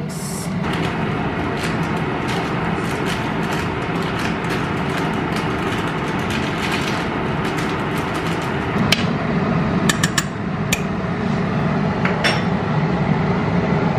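Pot of sinigang soup at a rolling boil, a steady bubbling hiss with small pops, while a metal spoon stirs it. Several sharp clinks of the spoon against the stainless steel pot come about nine to twelve seconds in.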